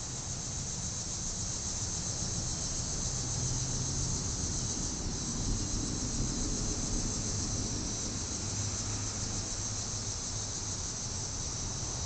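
Steady, high-pitched insect chorus that holds even throughout, with a low rumble underneath.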